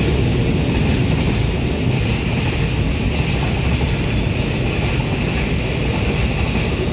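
Freight train passing, its container flats and boxcars rolling by on the rails in a steady noise that does not let up.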